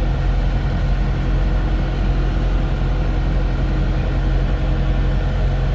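TYM 654 tractor's turbocharged diesel engine running steadily, heard from inside the cab.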